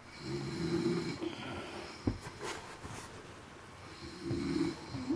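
A woman snoring in her sleep: two snores about four seconds apart, each lasting about a second, with quieter breathing between. A short low thump about two seconds in.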